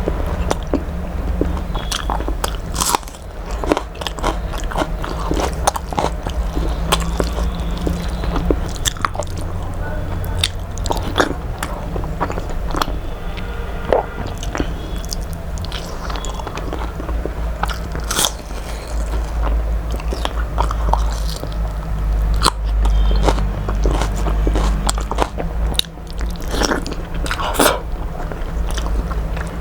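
Close-miked eating: chewing, crunching and wet mouth smacks, with many irregular clicks, over a steady low hum.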